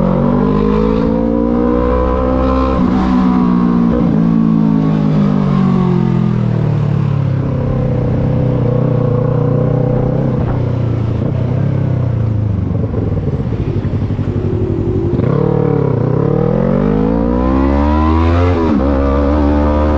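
Yamaha MT-03 motorcycle engine heard on board while riding. The revs climb in the first few seconds, then fall away slowly as the bike eases off. After a dip about fifteen seconds in they climb again, with a quick break in pitch near the end that sounds like a gear change.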